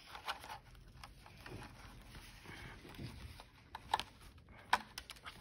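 Hands handling a Barbie doll and its plastic packaging: soft rustles and small knocks, with two sharper clicks about four seconds and nearly five seconds in.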